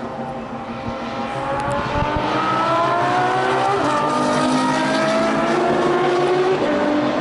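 Ferrari F12's V12 engine accelerating hard. It gets louder about two seconds in, then the pitch climbs and drops back twice as it changes up through the gears.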